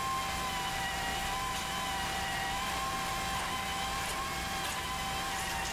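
Truck-mounted IMT80 auger drill rig running steadily under its engine and hydraulics, with a faint whine that wavers slightly in pitch.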